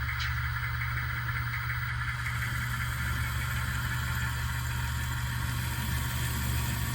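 Sound decoder in an N-scale model diesel locomotive playing a diesel engine sound through a small speaker, running steadily, with a brief high chirp just after the start.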